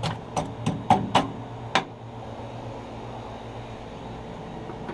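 About six short scraping strokes of a grill brush on the grill grates in the first two seconds, then only a steady low hum.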